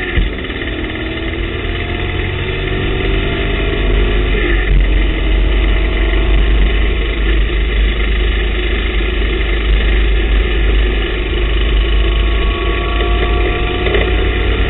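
TVR Tuscan race car's engine heard from inside the cockpit, running hard under acceleration. Its pitch climbs, breaking and dropping briefly just after the start and again about four and a half seconds in as it shifts up through the gears.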